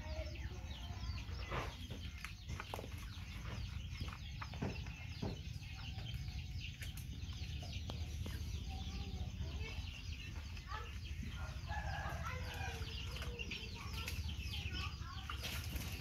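Chickens clucking repeatedly, with short calls scattered through and a cluster of clucks a little past the middle, over a low steady rumble.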